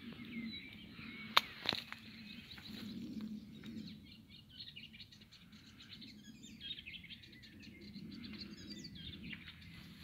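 Small birds chirping faintly and intermittently in open country. A sharp click about a second and a half in, with a smaller one just after, stands out as the loudest sound.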